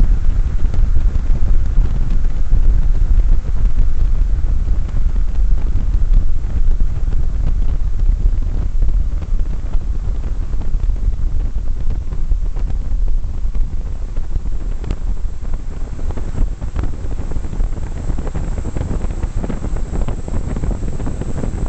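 Drying-chamber fan running, its air blast hitting the microphone as a loud, steady low rumble.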